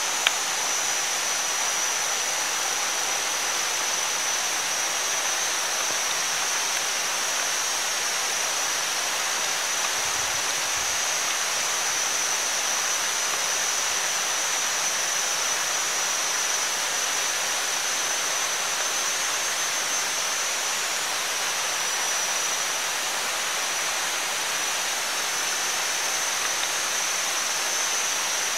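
Meat and egg sizzling on a fire-heated stone slab: a steady, even hiss.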